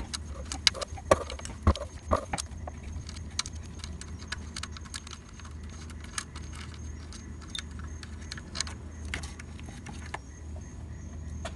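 Small, irregular metallic clicks and clinks as a socket and nut are worked loose on the alternator's output terminal stud and the cable's ring terminal is lifted off. The clicks come thickly for the first two seconds or so, then more sparsely, over a steady low hum.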